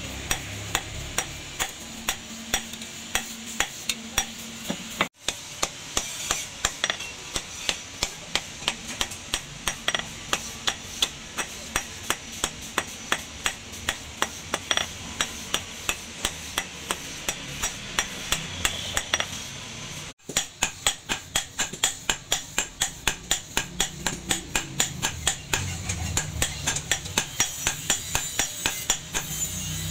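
Hand hammer striking the red-hot edge of a leaf-spring steel cleaver blade on a steel anvil: a fast, regular run of sharp metal-on-metal blows as the edge is forged thin. The run is broken twice by a brief gap.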